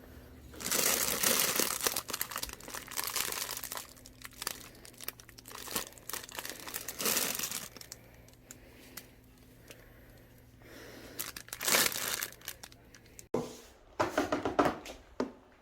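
Packaging being crumpled and torn open by hand during unboxing, in irregular bursts of rustling and crinkling with pauses between them.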